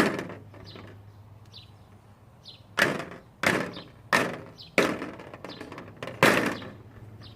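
A fidget spinner knocked against a glass light bulb, six sharp knocks in all: one at the start, then five more from about three seconds in, each ringing briefly. The glass does not shatter.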